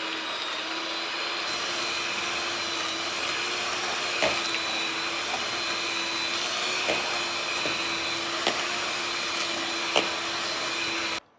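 Electric mixer running steadily as it blends ice cream and Oreos in a bowl, with a few sharp knocks along the way; it shuts off suddenly near the end.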